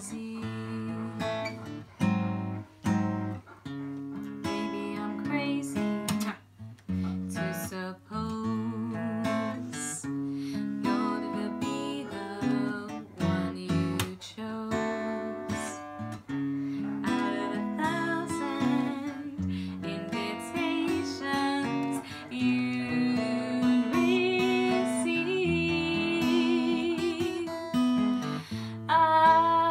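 Acoustic guitar strummed in a slow accompaniment, with a woman singing over it, holding notes with a slight vibrato.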